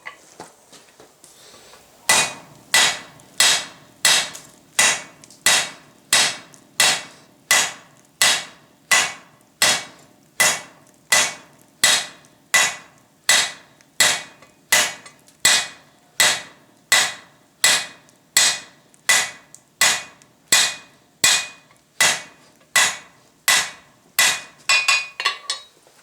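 Hand hammer striking hot steel bar on an anvil, a steady rhythm of ringing blows about three every two seconds after a short pause at the start, breaking into a quicker run of lighter blows near the end: forging, drawing out a 16 mm square bar.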